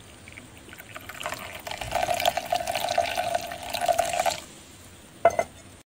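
Milky masala tea poured in a thin stream into a small terracotta cup, filling it with froth. The pour builds about a second in and stops suddenly near four and a half seconds, and a brief knock follows near the end.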